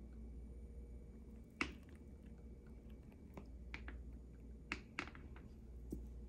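Handling noise: a handful of sharp, scattered clicks and taps, the loudest about a second and a half in, over a low steady hum.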